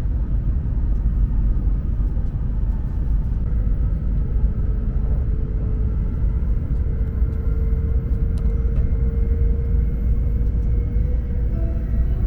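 Shinkansen train running: a steady low rumble, with a faint whine held through the middle.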